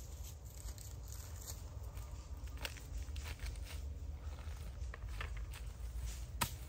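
Dry fallen leaves crunching and scraping as a long-handled tool is worked in the leaf litter, with scattered sharp crackles over a low wind rumble.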